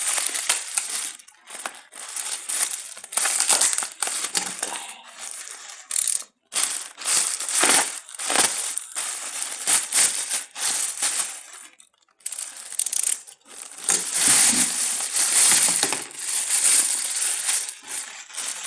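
Packaging being handled and opened by hand: irregular plastic and cardboard rustling, crinkling and clattering, with two brief pauses about six and twelve seconds in.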